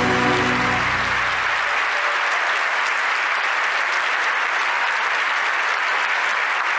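Audience applauding steadily. The last sustained notes of the act's music fade out about a second in.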